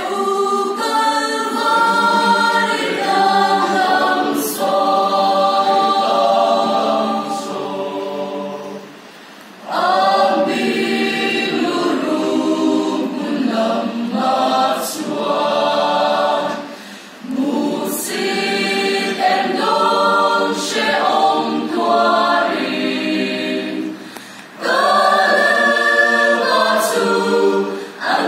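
A church choir singing a hymn in Mizo, many voices together, in long phrases with brief breaks between them.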